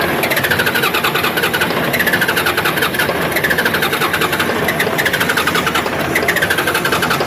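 Isuzu 6BG1 six-cylinder diesel engine cranking on its starter motor: a rapid even chugging with a whine that falls in pitch and repeats about every second and a half. The engine turns over but does not keep running, the sign of its hard-starting fault.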